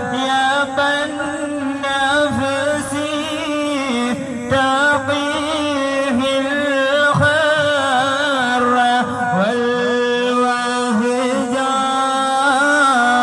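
Male voices chanting a devotional Islamic song in melodic phrases, amplified through horn loudspeakers, over a steady held low tone.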